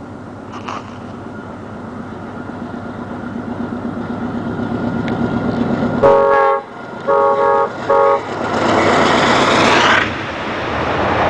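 Amtrak passenger train led by a GE Genesis diesel locomotive approaching, its engine growing steadily louder. About six seconds in it sounds three horn blasts, the first longest and the last shortest. The locomotive then passes close by with a loud rush of noise, and the passenger cars follow.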